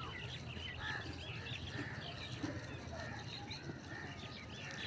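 Many small birds chirping together, a dense, continuous chatter of short, quick chirps with a few lower calls mixed in, over a steady low hum.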